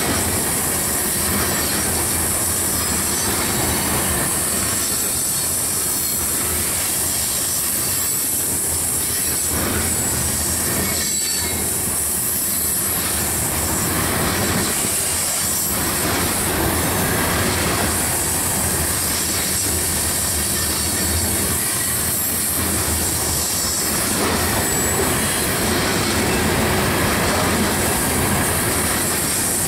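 Loaded coal train's cars rolling past on curved track: a steady rumble of wheels on rail, with high-pitched wheel flange squeal running continuously over it.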